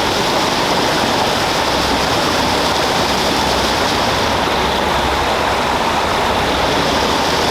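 Steady, loud rush of flowing water, like a stream or small waterfall, with no break or change.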